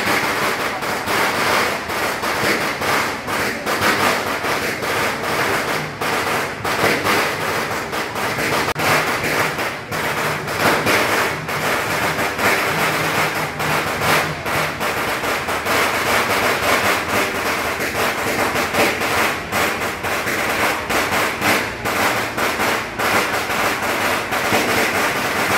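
A string of firecrackers crackling continuously in dense, irregular rapid cracks, over the din of a crowd.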